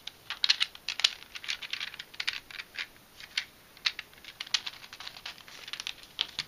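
3D-printed plastic twisty puzzle pieces clicking and clacking irregularly as the puzzle's faces are turned and the last piece is worked into place.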